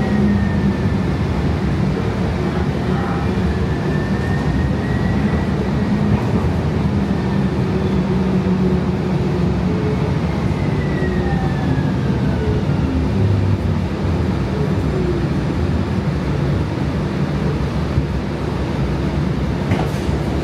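Inside a Siemens S700 light-rail car running on its track: a steady rumble with faint whining tones that slide in pitch. The whine falls at around halfway through as the car slows alongside the station platform.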